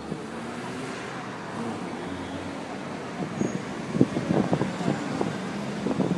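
Car and road-traffic noise heard from inside a car creeping through city traffic. From about halfway in there is a run of short, irregular knocks and bumps.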